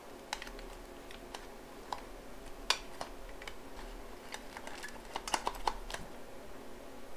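Irregular small clicks and taps of a motorcycle's metal headlight rim and lens being pressed and fitted by hand into the chrome headlight bucket, with a sharper click about two and a half seconds in and a quick run of clicks later on.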